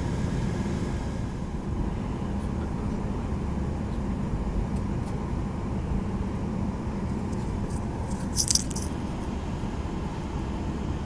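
Steady cabin hum of an airliner waiting on the ground, its engines and air conditioning running. A brief high-pitched metallic rattle about eight seconds in.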